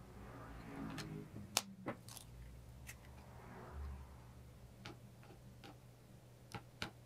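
Light clicks and taps of eggs being separated: eggshell and a plastic egg separator knocking against a plastic cup and a glass bowl, with a few scattered sharp clicks, the sharpest about one and a half seconds in.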